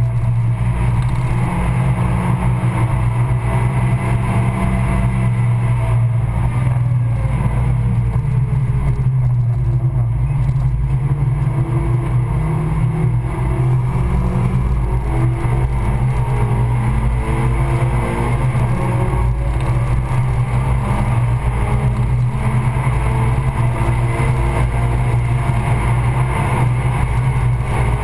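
Tuned Suzuki Swift Sport Stage 2 four-cylinder engine at track speed, heard from inside the cabin over loud road and wind noise. The revs fall for several seconds about a quarter of the way in, then climb again in steps through the rest.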